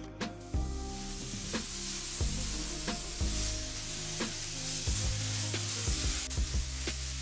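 Gravity-feed spray gun hissing steadily as it sprays a coat onto wood, starting about half a second in. Background music with a regular beat plays underneath.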